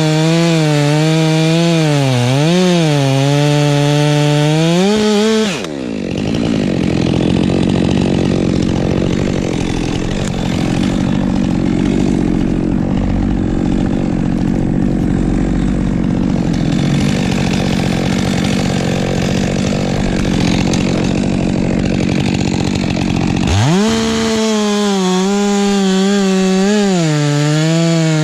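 Chainsaw running at high revs, its pitch wavering up and down as it works through pine wood. About six seconds in it drops sharply to a lower, steadier running. It revs back up near the end and again wavers under load.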